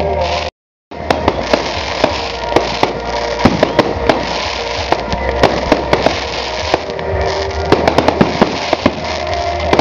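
Aerial fireworks display: a rapid, dense stream of sharp cracks and pops from bursting shells and crackling gold stars, over music playing throughout. The sound cuts out completely for a moment about half a second in.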